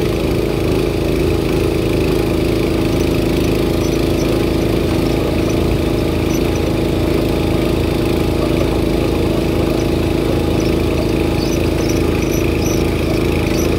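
Barreto 912 walk-behind trencher's engine running steadily under load, with a low pulsing, as its digging chain cuts a trench through stony dirt.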